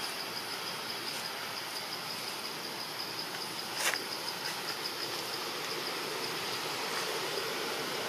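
Insects trilling steadily in a high, pulsing band over an even outdoor hiss, with a single sharp knock about four seconds in.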